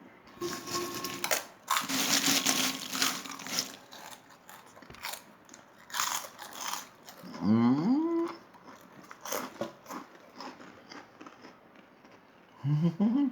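Loud crunching bites and chewing of crisp food close to the microphone, strongest in the first few seconds, then scattered smaller crunches. Twice, about seven seconds in and near the end, a voice gives a rising, moo-like hum.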